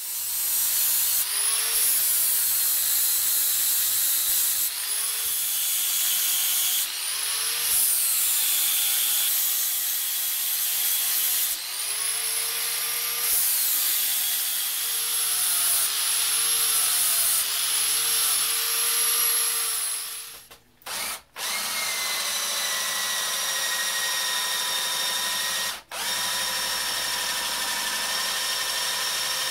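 Handheld angle grinder cutting a groove into a steel sledgehammer head, its whine sagging and recovering again and again as the disc bites into the steel. After about 21 seconds a drill takes over with a steadier whine as it works the head.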